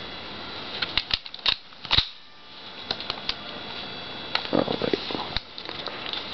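Handling noise from an airsoft HK416 rifle being handled: a scattering of sharp clicks and taps, with a short stretch of rustling about four and a half seconds in.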